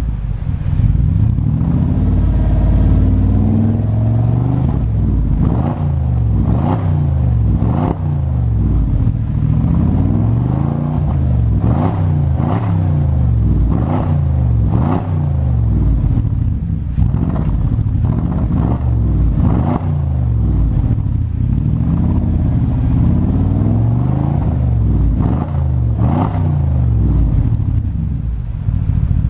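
Porsche 955 Cayenne Turbo's twin-turbo V8 running through a HE'ART aftermarket exhaust, idling and then revved in a long run of quick throttle blips, about one a second, before settling back to idle near the end.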